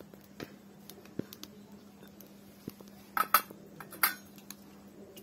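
Metal spatula tapping and scraping in a metal karahi as boiling slices are stirred, then a pair of sharp metal clanks a little past three seconds in and another about four seconds in as the spatula is set down on a metal bowl.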